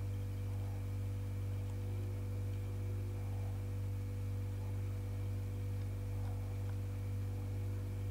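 Steady electrical mains hum: a low drone with several fainter higher tones above it, even throughout.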